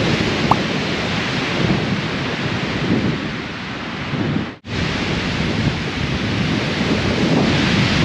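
Strong wind buffeting the camera's microphone: a loud, steady rushing noise with no voices, which cuts out for an instant a little past halfway through.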